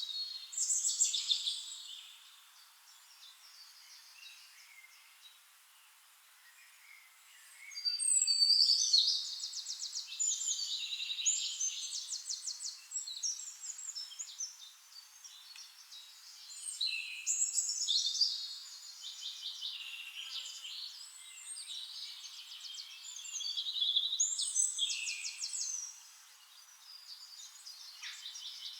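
Forest songbirds singing: several bouts of fast, high trilled song with quieter chirps between them, and a quieter lull from about two to seven seconds in.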